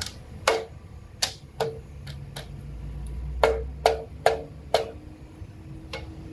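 Sharp metallic clinks and knocks, about ten at irregular intervals, each with a short ring, as a steel clutch pressure plate is handled and seated against the flywheel.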